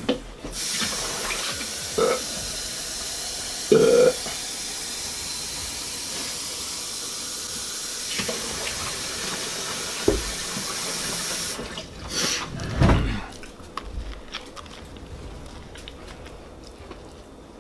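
Kitchen faucet running steadily for about eleven seconds as water refills a plastic drinking cup, then shut off sharply; a few knocks and bumps come around it.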